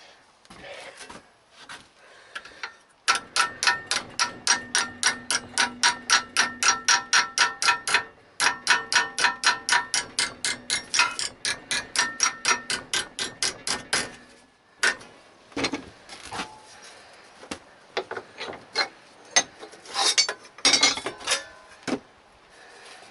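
Hammer striking sheet steel in quick, even blows, about five a second, with a metallic ring on each blow. The blows come in two long runs, then as scattered single blows, as when a steel repair panel is hammered into shape.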